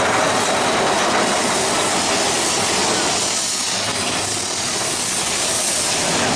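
Big Thunder Mountain Railroad mine-train roller coaster cars running along the track, a steady rumble and rattle, easing off a little partway through.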